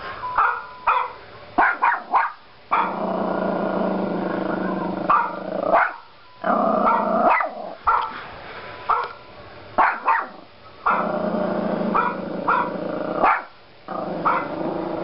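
Yorkshire terrier puppy barking at a dog on a laptop screen: a string of short, sharp barks, some in quick pairs. Between them come longer stretches of a steady sound.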